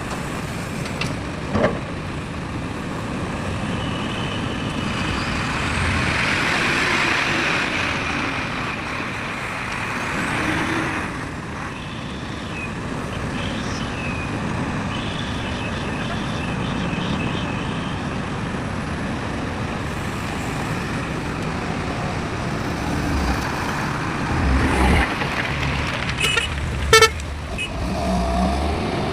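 Truck engines and heavy machinery running steadily, mixed with road traffic noise. A short knock comes early, and a few sharp knocks come near the end.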